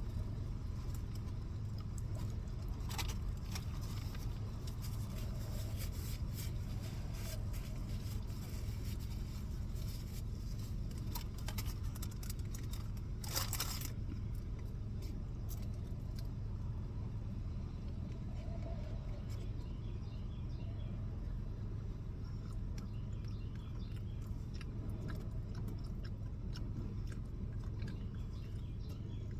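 Food being eaten: scattered crunches, clicks and scrapes, with a longer crackle about 13 seconds in, over a steady low rumble.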